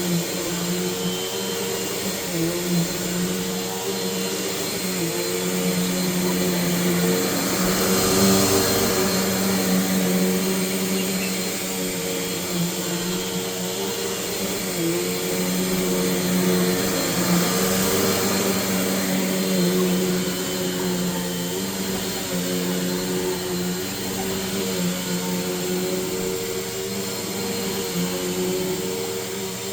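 Bissell PowerForce Bagless 6582 upright vacuum cleaner running continuously: a steady motor hum under a rushing hiss of airflow, which swells louder twice as it is worked across the floor.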